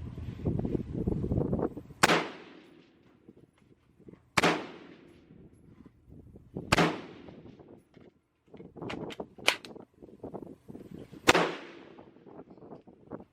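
Gunshots: four sharp reports, each followed by a ringing decay. The first three come about two seconds apart, and the fourth after a longer gap, with lighter clicks and knocks before it.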